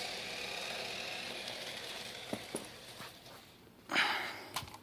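Toy RC car's small electric motor and gears running steadily, dying away about three and a half seconds in. A short scraping rustle follows near the end.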